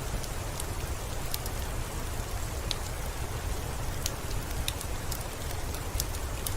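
Steady rainfall with a deep low rumble underneath and many sharp, scattered drip ticks of drops hitting a surface.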